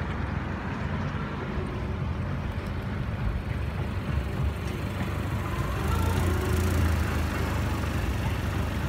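Steady low outdoor rumble with no distinct events, swelling slightly about six seconds in.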